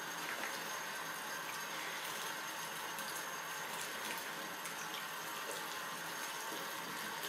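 Bathroom sink tap running in a thin stream onto a puppy's fur and into the basin, a steady splashing hiss as the puppy is wetted down.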